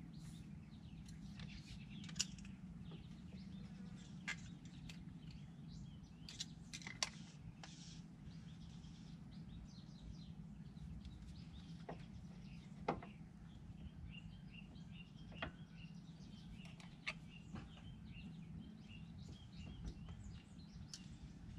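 Faint steady hum with birds chirping, broken every few seconds by sharp clicks and clinks of tools and brake parts being handled during a brake pad change.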